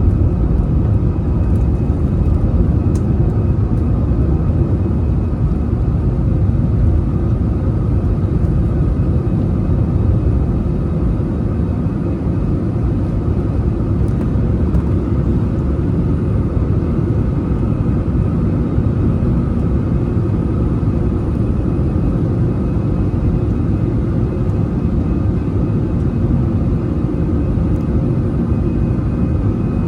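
Airbus A320-200 jet engines and airflow heard inside the passenger cabin: a steady heavy rumble with a faint steady whine on top.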